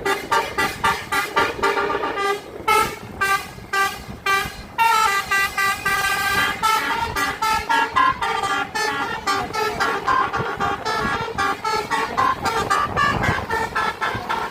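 Bus telolet horn (a Basuri musical air horn) playing a fast melody of short stepped notes, with one longer held note about five seconds in.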